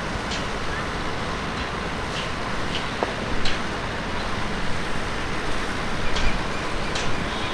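Steady rushing roar of jet aircraft engines, with a few faint short high chirps.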